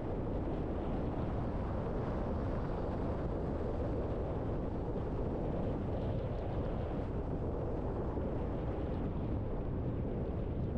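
Steady driving noise of a car on the road: an even low rumble of tyres and engine with no distinct events.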